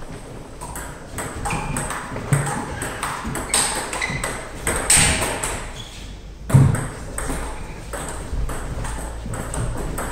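Table tennis ball clicking off the bats and the table in a rally: a string of sharp, irregular ticks, one louder hit about two-thirds of the way through.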